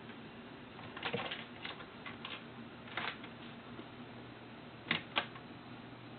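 A kitten batting and biting at a coiled telephone cord hanging against a wooden bookshelf: scattered clicks and light knocks, a quick cluster about a second in and two sharp taps about five seconds in.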